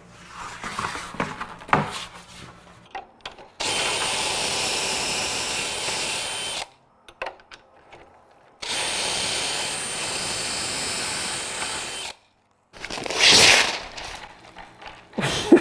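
DeWalt XR cordless drill boring pocket holes in a board held in a pocket-hole jig: two steady runs of about three seconds each, the motor whining. Before the runs there are knocks and wood-handling sounds, and near the end comes a brief loud rasp.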